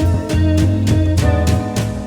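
Background music: a guitar-led instrumental over bass and a steady drum beat.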